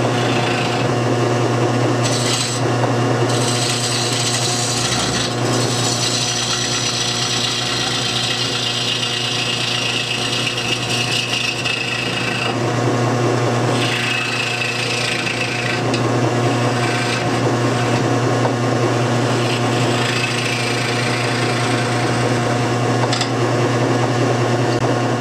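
Homemade wood lathe running with a steady hum while a hand-held turning tool cuts into the inside of a spinning wooden bowl: a continuous hissing, scraping rasp of shavings peeling off, swelling and easing as the cut goes on.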